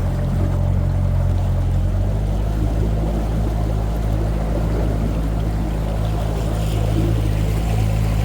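Boat motor running steadily, with water rushing along the hull; the engine note shifts about two seconds in.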